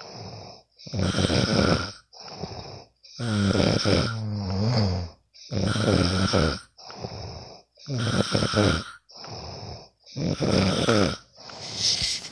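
A sleeping person snoring in a regular rhythm: five loud snores about every two to two and a half seconds, with a quieter breath between each. The snore about three seconds in is longer and changes pitch as it goes.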